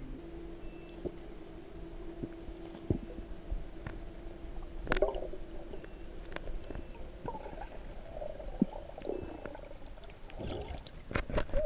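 Underwater ambience picked up by a camera in its waterproof housing: a low, muffled rumble of water with scattered sharp clicks and pops, and a faint steady hum through the first half. A few louder splashes and knocks come near the end as the surface is reached.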